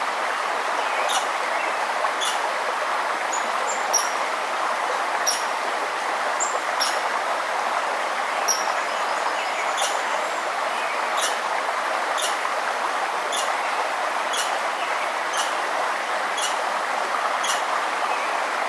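Steady rush of a flowing river, with a bird giving short, sharp chirps about once a second and a few fainter high bird notes between them.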